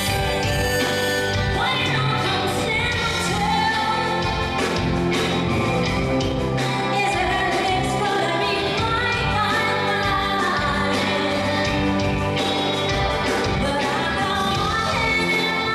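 A woman singing lead vocals with a live pop-rock band: drums, electric guitars and keyboard.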